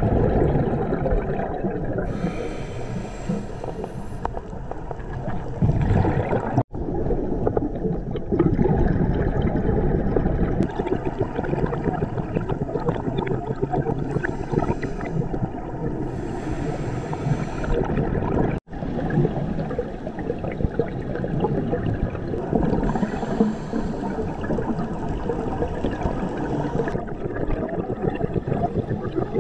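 Underwater sound at a scuba diver's camera: a steady rumble of water noise, with hissing rushes of exhaled regulator bubbles every several seconds. The sound drops out for an instant twice.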